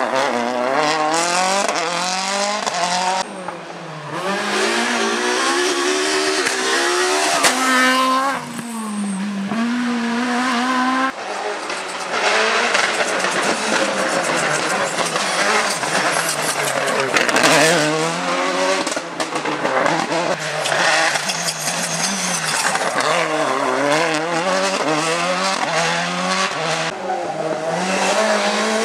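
Rally cars driven hard through a hairpin one after another: a Citroën C4 WRC, a Citroën Xsara WRC and a Peugeot 207 S2000. Their engines rev up and down in quick sweeps through the gear changes, with sudden jumps in the sound where one pass gives way to the next.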